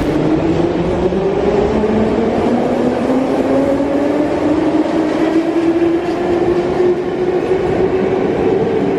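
Baku Metro train running loud and rumbling, with a motor whine that slowly rises in pitch as the train picks up speed.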